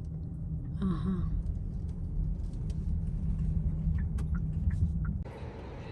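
Car driving: a steady low road rumble, with a brief voice about a second in and a few light clicks. About five seconds in it cuts off abruptly to a hissier background hum.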